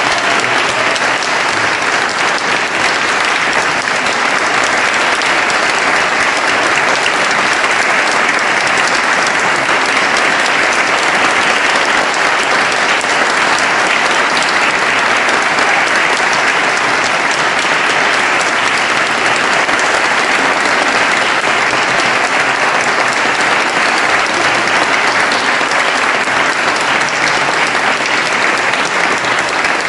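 Audience applauding, a long, steady round of clapping that keeps up without a break.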